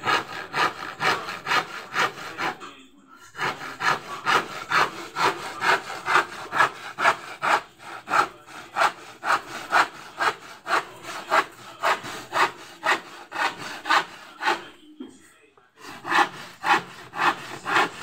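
Handsaw cutting through a palochina pine plank, with rhythmic back-and-forth rasping strokes at about two to three a second. The sawing pauses briefly about three seconds in and again near fifteen seconds, then resumes.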